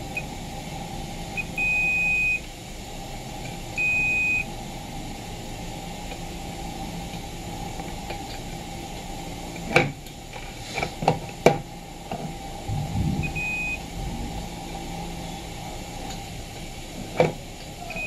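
Digital multimeter's continuity beeper sounding in short high beeps as the probes touch the coffee maker's heating-element terminals: two beeps under a second long in the first few seconds and a brief blip later. The beep signals continuity, meaning the heating element is intact. A few sharp clicks sound midway.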